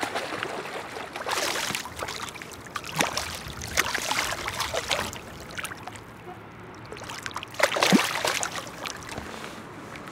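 A small zander splashing and thrashing at the water's surface as it is reeled in, in a few short bursts, the loudest about eight seconds in.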